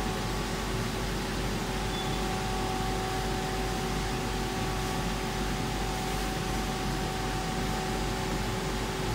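Laser cutting machine running as it works over an acrylic sheet: a steady hiss with a constant hum, even throughout.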